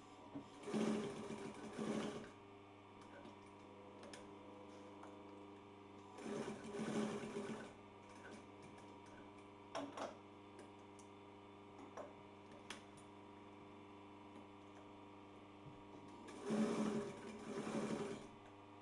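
Singer industrial sewing machine stitching wool felt in three short runs of about a second and a half each, with a steady hum between the runs. A few light clicks come in the middle.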